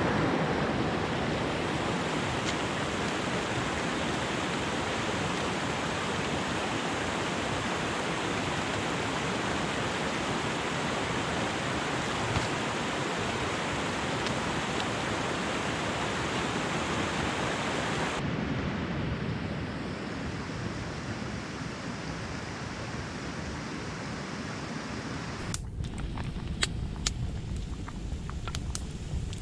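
Shallow stream rushing steadily over rocks, a loud, even water noise. A few seconds before the end it gives way to a softer hiss with sharp crackles and pops from a wood stove with a frying pan on top.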